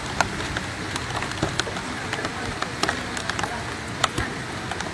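Steady rain with a hiss, and heavy drops striking a surface close to the microphone in sharp, irregular ticks several times a second.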